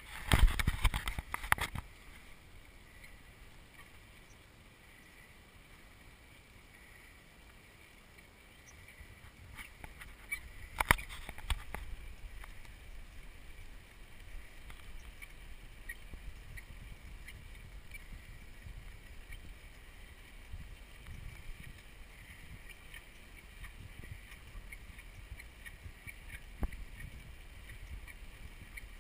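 Wind rumbling on a bike-mounted camera's microphone while cycling along a road, with scattered clicks and rattles. Loud knocks from the camera being handled come in the first couple of seconds, and a single sharp knock about eleven seconds in.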